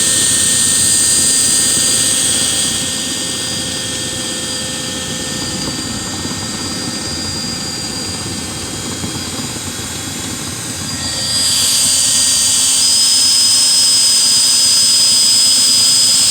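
Electric motor of dryer-vent cleaning equipment running steadily with a high whine. It eases off about three seconds in and comes back up louder about eleven seconds in.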